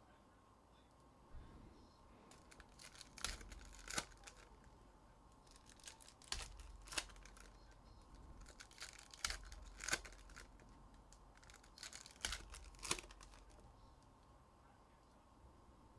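Trading card pack wrappers being torn open one after another, a pair of sharp rips about every three seconds, with light crinkling between.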